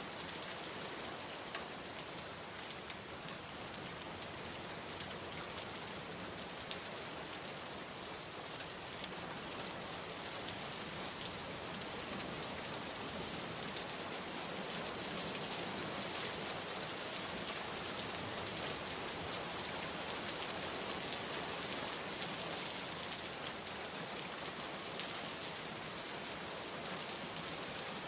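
Steady rain falling and pattering on surfaces, a dense even hiss with scattered individual drop ticks.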